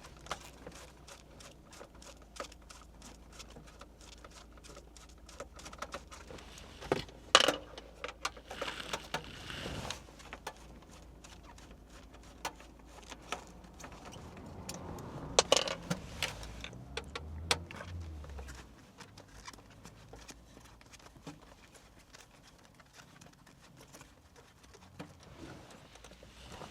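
Scattered small clicks and clinks as screws are undone with a Phillips screwdriver and the original car stereo's casing is handled and pulled apart, with a few louder sharp knocks.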